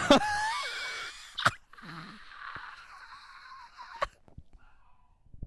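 A person's high-pitched, breathy vocal noise: a wavering cry in the first second, then a long airy wheeze that fades out about four seconds in. Two short sharp clicks, about 1.5 and 4 seconds in.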